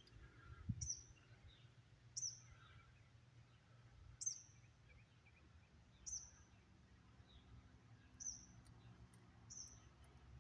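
A small bird's short, high chirp, repeated faintly about every two seconds over quiet outdoor background.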